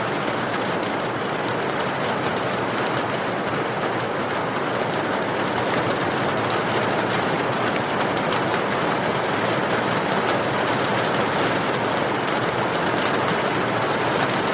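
Steady rain falling, with the small, frequent crackles of a wood fire.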